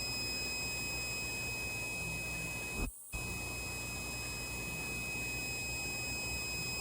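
Piezo buzzer on an Arduino flame-sensor fire alarm sounding one steady high-pitched tone, the alarm set off by the flame sensor, over a low hum and hiss. The sound breaks off briefly about three seconds in.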